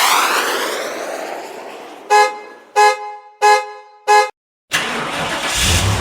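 A sweeping whoosh, its pitch gliding, fades out. Then a car horn gives four short honks, about two-thirds of a second apart. After a moment of silence, a steady hissing rumble starts.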